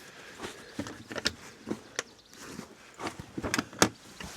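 Footsteps with irregular light knocks and clicks of carried camping gear, the loudest knock near the end.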